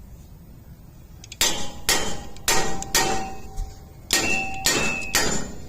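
A big crescent wrench whacking a stuck cast-iron rear brake rotor to break it free from the hub: seven hard metal-on-metal clangs, four and then three after a short pause, several leaving a brief ringing tone.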